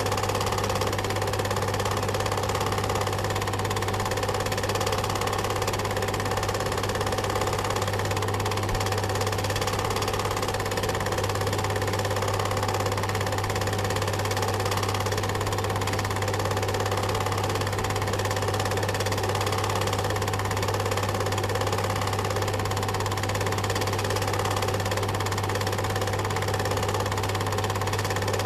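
Cine film projector running: a steady motor hum with a fast, even clatter of the film mechanism.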